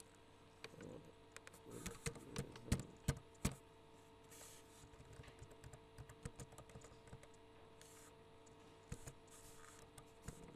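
Typing on a computer keyboard: separate key clicks, a quick, louder flurry of keystrokes about two to three seconds in, then slower, scattered taps. A faint steady hum runs underneath.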